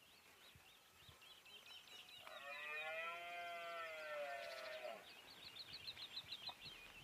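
Red deer stag roaring once during the rut: a single drawn-out call of almost three seconds that rises and falls in pitch. Small birds chirp throughout.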